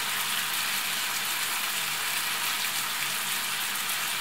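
Chicken pieces frying in vegetable oil in a frying pan, giving a steady sizzle, with grated carrot and onion just tipped in on top.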